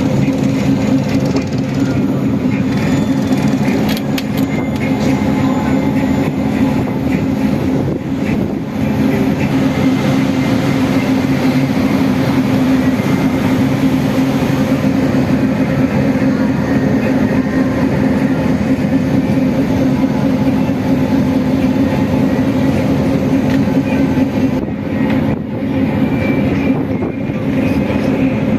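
Sightseeing riverboat's engine running steadily under way: a constant low drone with a steady hum.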